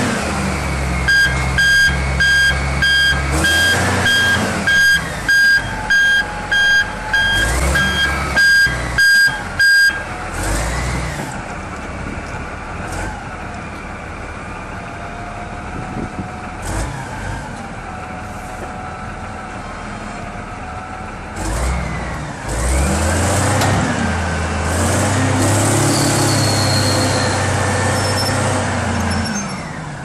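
Large Caterpillar wheel loader's diesel engine running, with a reversing alarm beeping steadily, about three beeps every two seconds, for roughly the first ten seconds. A little past the twenty-second mark the engine revs up and holds at a higher, louder pitch for several seconds.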